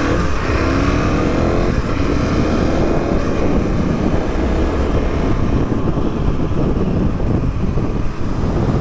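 Adventure motorcycle accelerating, its engine pitch climbing for the first couple of seconds, then holding a steady drone at highway speed under a rush of wind and road noise.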